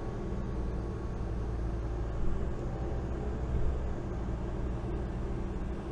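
Road and engine noise inside a moving car: a steady low rumble with a hiss of tyre and wind noise, and two brief louder bumps about two and three and a half seconds in.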